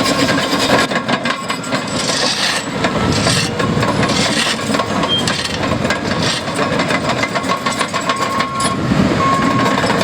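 Heavy tracked construction machine at work: a diesel engine running under a continuous rattle and clank of steel tracks.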